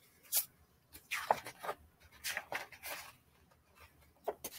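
Scattered rustles and light knocks of a paperback picture book being picked up and handled, its cover and pages brushing against hands and table.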